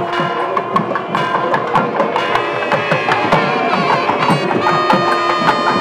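Indian festival music: quick, steady drum strokes under a held melody line that wavers near the end.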